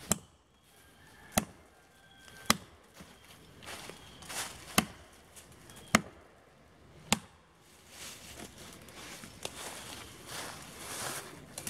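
Axe blows chopping into the trunk of a dead standing tree: six sharp, single strikes about a second apart, then the chopping stops.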